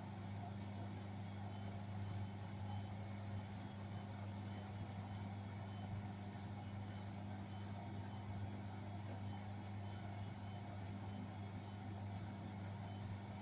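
Beko washing machine running on its spin and drain programme: a steady low hum that holds at one pitch, with no rise or fall in speed.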